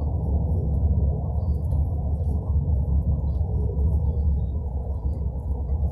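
Steady low rumble of a moving road vehicle's engine and tyres, heard from inside the cabin.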